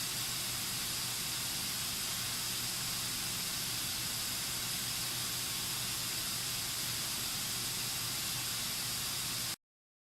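White-noise test signal played through a small Bluetooth speaker: a steady, even hiss, brightest in the treble, that cuts off suddenly near the end.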